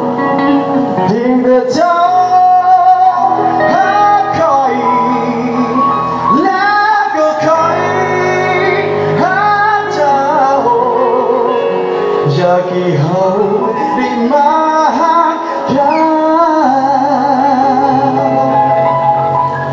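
Live song: a male singer sings a melody with vibrato, accompanied by piano and electric guitar.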